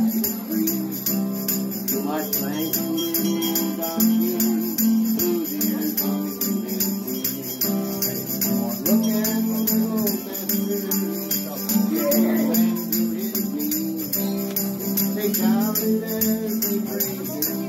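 Guitar strummed live with a tambourine shaken and struck in time, its jingles ringing on the beat.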